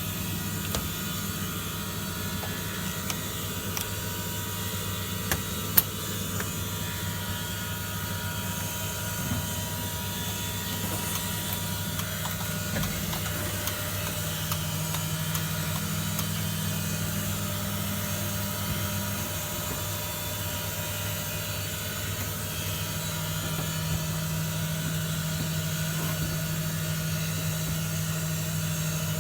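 Hoover Keymatic De Luxe 3243H washing machine at the start of a wash cycle, running with a steady hum and a faint hiss. Two sharp clicks come about five and six seconds in, and the hum changes pitch slightly around halfway.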